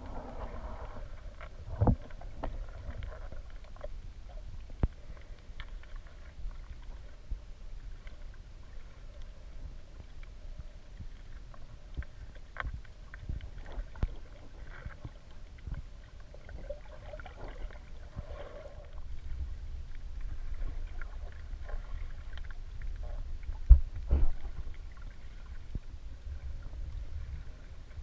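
Muffled underwater ambience heard through an underwater camera housing: a steady low rumble of moving water with scattered knocks and clicks, the loudest a pair of sharp thumps near the end.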